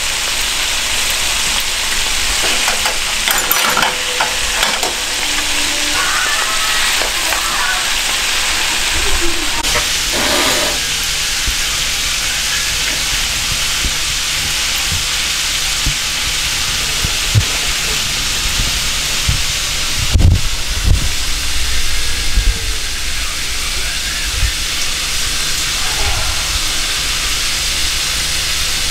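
Egg-coated frog legs deep-frying in hot oil in a cast-iron skillet: a steady, loud sizzle. A few low knocks come about twenty seconds in.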